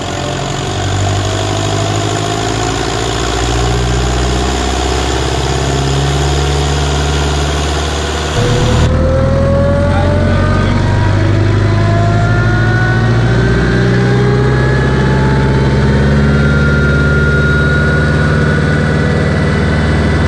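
Ursus C-360 tractor's turbocharged four-cylinder diesel running hard under load on a roller dyno during a power run, with a whine that rises slowly in pitch as the run goes on. About eight seconds in it is heard from inside the cab, closer and louder.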